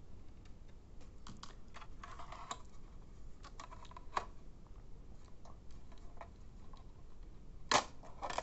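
Scattered small clicks and brief scrapes of a switching power supply's aluminium sheet-metal case and screws being handled as the cover is unscrewed and lifted off, with one sharper metal clack near the end.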